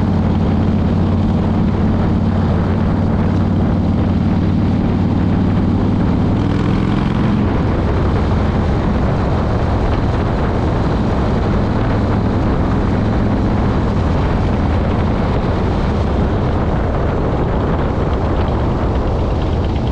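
Cruiser motorcycle engine running at road speed, with wind rushing over the camera microphone. The steady engine note changes about a third of the way through, as with a shift or a change of throttle.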